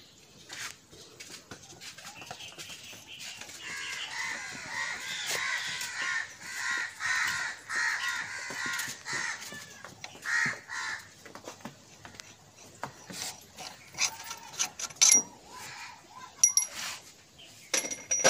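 Harsh bird calls repeat for several seconds. Near the end come a few sharp metallic clinks with a short ringing note, from steel hand tools knocking on the tractor's engine.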